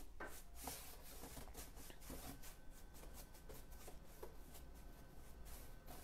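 Faint, scratchy strokes of a paintbrush worked back and forth over the painted wooden panel of a carved headboard, a few strokes a second.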